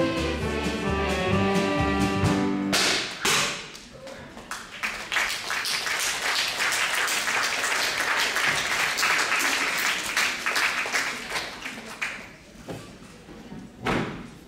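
A band's closing chord is held and ends about three seconds in. Then an audience applauds steadily for several seconds and dies away. A single sharp thump comes near the end.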